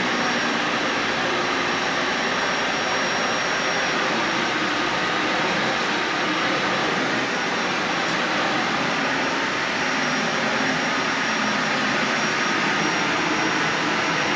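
Dyson Ball Animal 3 upright vacuum cleaner running steadily over carpet: an even rush of motor and airflow with a faint high whine.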